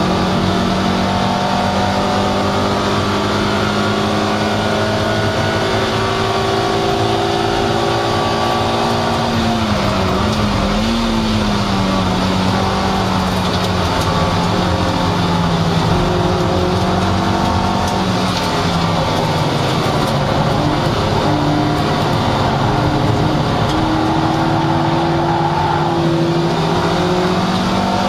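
Toyota MR2 Roadster's 1.8-litre four-cylinder race engine running hard at high revs, heard from inside the cabin over steady road and wind noise. The engine note dips and recovers briefly about ten seconds in, sags slightly later, and climbs again near the end.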